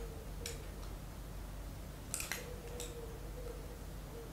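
A metal spoon prying and tapping at the metal screw lid of a glass jam jar to loosen the stuck lid, making about three sharp metallic clicks.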